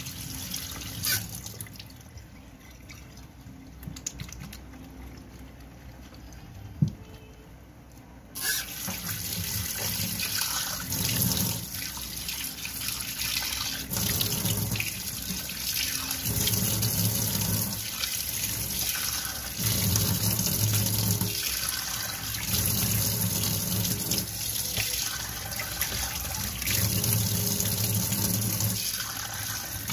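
Tap water running into a stainless steel sink, with recurring splashes as water is cupped in the hands and rubbed over the face. The running water becomes clearly louder about eight seconds in.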